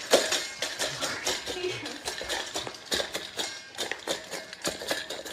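Quick, irregular clicks and taps, several a second, like small hard objects knocking together.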